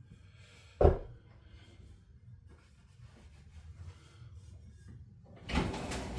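Faint rubbing and handling of metal chainsaw engine parts on a workbench, with one sharp knock about a second in and louder clattering near the end.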